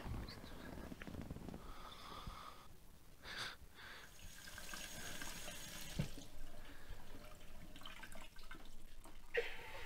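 Kitchen tap running into a sink, a steady hiss from about halfway in, with a soft knock and a few small clicks around it.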